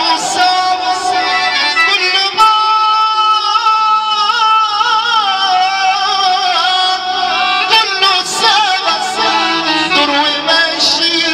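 Live Egyptian shaabi music played loud over a PA: a man sings a long, ornamented melodic line, with a note held and wavering for several seconds, over an amplified keyboard and band.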